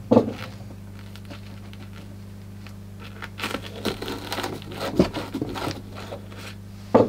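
Crinkly rustling and a few sharp clicks as handmade miniature model trees are pushed into a grassed model railway scenery board by hand. The rustling is busiest from about three seconds in, over a faint steady low hum.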